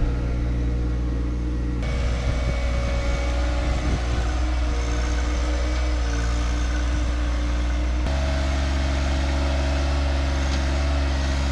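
John Deere 1025R compact tractor's three-cylinder diesel engine running steadily. Its tone shifts abruptly about two seconds in and again about eight seconds in.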